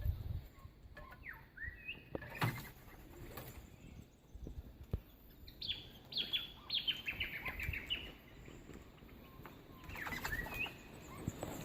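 Small birds chirping: a couple of short calls early, a quick run of about ten descending chirps in the middle, and another call near the end. A couple of brief knocks are also heard.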